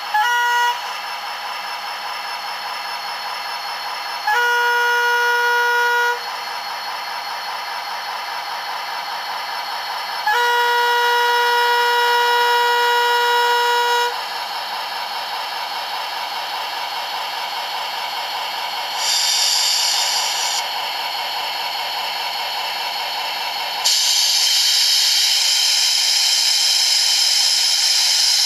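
Sound decoder of an OO gauge model of a Northern Ireland Railways class 111 diesel locomotive, played through the model's small speaker: the diesel engine idles steadily while the horn sounds three times, a brief toot, a blast of about two seconds and a longer one of about four seconds. A short hiss of air comes about 19 seconds in, and from about 24 seconds in a loud steady hiss of the air dump.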